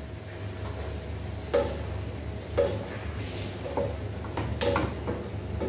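Wooden spatulas knocking against a metal cooking pot while stir-frying bean sprouts and vegetables, about five knocks roughly a second apart, each with a short ring from the pot.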